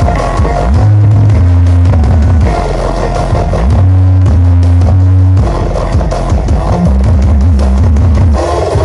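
Very loud electronic dance music played through large sound-system rigs in a sound battle. It is dominated by heavy, sustained bass notes that stop and restart every second or two, then give way to a busier bass line past the middle.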